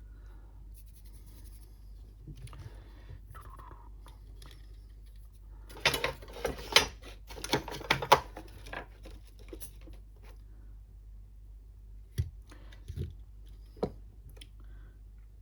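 Metal pliers working a piece of metal on the bench: a run of sharp clicks and snaps about six to eight seconds in, then three single clicks near the end.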